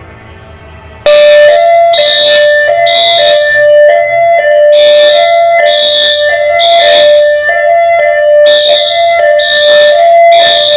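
A loud electronic alarm cuts in suddenly about a second in and repeats two alternating tones, switching about every half second with a sharp high beep on each.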